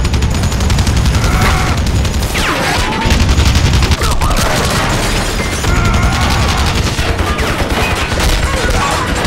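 Sustained, dense machine-gun fire with bullet impacts, from an action-film soundtrack.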